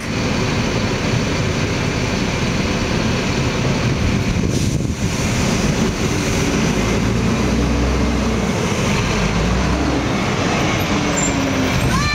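Garbage truck's diesel engine running steadily at the curb, with a deeper hum swelling for a few seconds past the middle.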